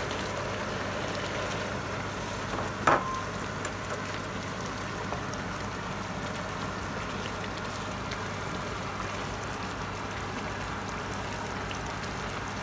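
Walnut-and-milk halwa mixture bubbling and sizzling in a non-stick pan over high heat while being stirred with a silicone spatula. A single sharp knock comes about three seconds in.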